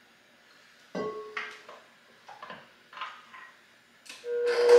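A spatula knocks and clinks a few times against a stainless steel mixing bowl, one knock leaving a short metallic ring. Near the end the stand mixer is switched on with a click and its motor starts running with a steady whine, for a brief final mix of the batter.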